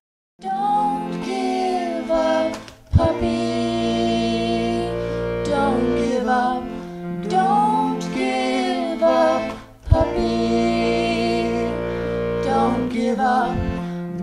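A man singing a cabaret song to accordion accompaniment: held accordion chords under a sliding vocal line. The music drops out briefly twice, each time ending in a sharp click, about three and ten seconds in.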